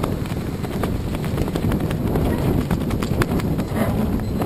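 Wind buffeting the camera's microphone, a steady low rumble, with irregular light knocks and slaps scattered through it.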